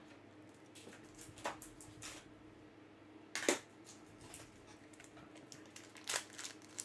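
Scattered sharp clicks and taps of a trading card going into a magnetic one-touch card holder and the plastic case being handled on a table. The loudest click comes about three and a half seconds in, over a faint steady hum.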